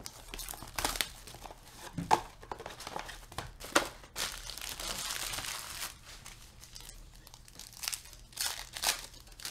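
A cardboard box of trading cards being opened, then a foil card pack crinkled and torn open. There are a few sharp snaps in the first seconds, a long crinkle in the middle, and a few crisp rips near the end.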